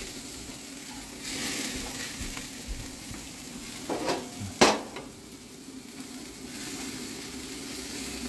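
Turkish lamb burgers sizzling on the hot grates of a gas barbecue grill, a steady hiss. A sharp knock comes about halfway through.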